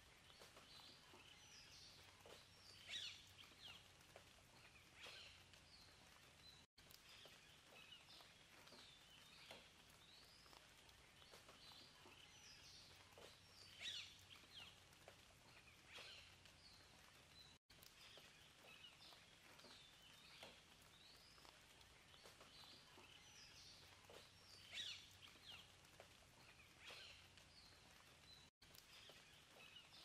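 Faint birdsong of short chirps and whistled calls over a soft outdoor hiss. The same stretch repeats about every eleven seconds, with a brief dropout each time.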